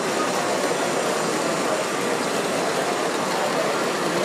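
O gauge (7mm-scale) model goods wagons rolling along the track, a steady rolling noise without distinct clicks.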